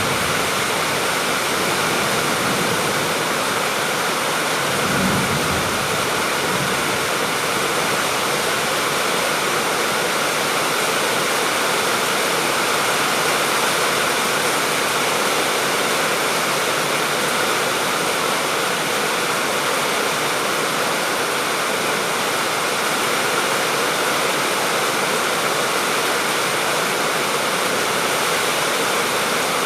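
Steady rain falling, a continuous even hiss of water, with a brief low rumble about five seconds in.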